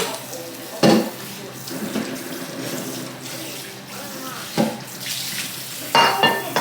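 Water running steadily from a kitchen tap into a sink, with a few short louder sounds over it about a second in, after about four and a half seconds and near the end.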